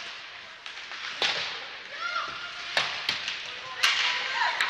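Ice hockey sticks striking the puck and the ice during play: five sharp cracks spread over a few seconds, over the steady hiss of skates on the ice.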